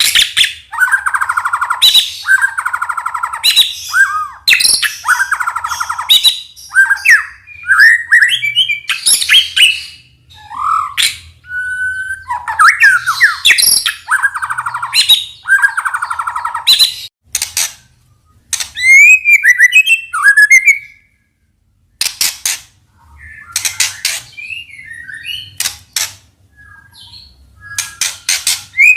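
White-rumped shama (murai batu) singing loud, varied phrases that mix clear whistles, harsh buzzy notes and rapid rattling trills, with short pauses and one brief gap about two-thirds of the way in. It is played as a lure song to prompt a young shama to sing.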